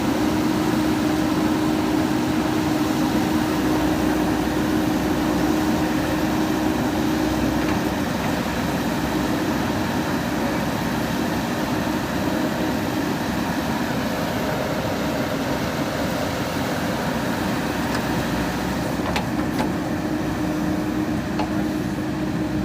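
JCB 3DX Super backhoe loader's diesel engine running steadily, with a steady whine that fades out for about ten seconds in the middle and comes back near the end.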